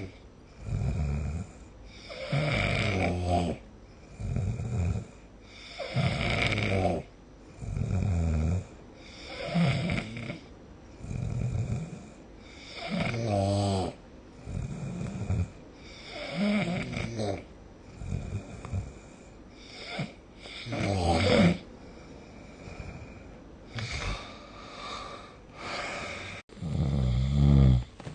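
A sleeping person snoring: one snore about every one and a half to two seconds, with quieter gaps between, and the loudest snore comes near the end.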